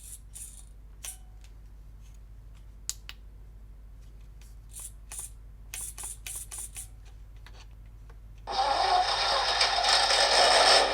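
Scattered light clicks, then about eight seconds in the PRC QX-4 1/18 micro RC crawler starts up with a loud, steady mechanical buzz that runs on.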